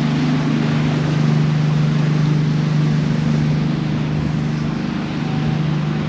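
Passenger ferry's engines droning steadily under way, with an even hiss of wind and water over it.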